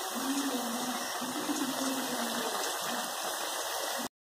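Onion-and-green-chilli curry base cooking in a steel kadai over a gas burner on high flame: a steady sizzling hiss. It cuts off suddenly near the end.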